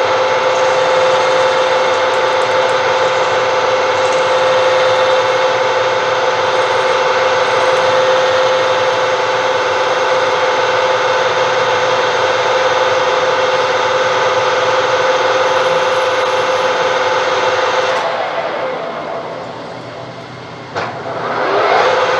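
Lathe running steadily in a higher gear while turning a plastic workpiece, a steady motor whine under cutting noise. About eighteen seconds in it spins down, a click follows, and it spins back up to speed near the end.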